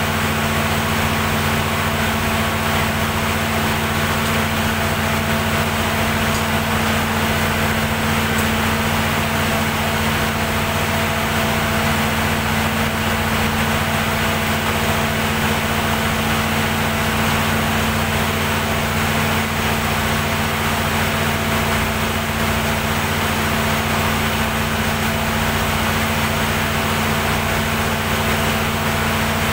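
Perkins diesel generator set running steadily at constant speed, an even, unchanging engine hum.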